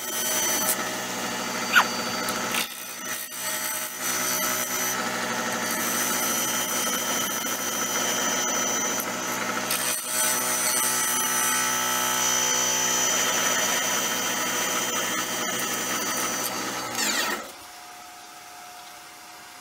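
Wood lathe running while a turning tool cuts the spinning cedar-and-epoxy-resin bowl blank, a steady hiss of cutting over the motor's whine, with a brief rising squeal about two seconds in. The cutting stops about 17 seconds in, leaving a much quieter steady hum.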